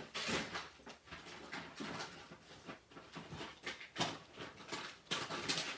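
Gift packaging being handled and torn open: short scratchy rustles and rips, the loudest about four seconds in and again near the end.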